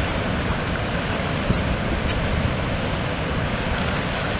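River rapids rushing over rocks: a steady, even rush of water.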